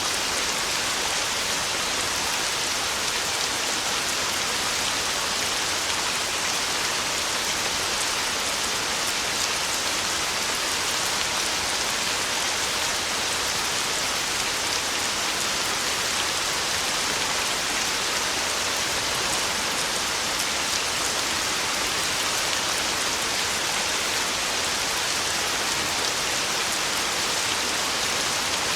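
Heavy rain pouring steadily, an even hiss with no breaks or surges.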